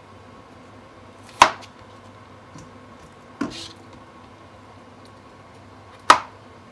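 A knife chopping cauliflower into florets on a plastic cutting board: three sharp knocks about two seconds apart, the first and last the loudest.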